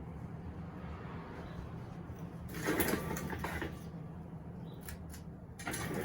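1982 Casablanca Zephyr III ceiling fan running on high speed with a steady low motor hum. A louder, brief rustling noise comes about two and a half seconds in.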